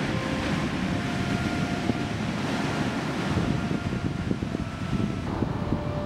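Heavy sea swell breaking and washing up a pebble beach: a steady rushing surf with a deep rumble.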